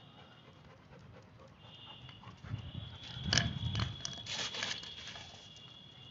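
Labrador retriever panting as it runs close by, with a few loud, quick breaths about halfway through.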